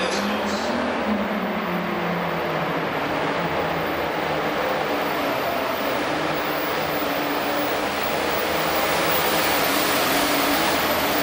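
Case IH MX270-bodied super farm pulling tractor's diesel engine at full power dragging a weight-transfer sled, revving up at the launch and then running flat out at a steady level, a little louder near the end.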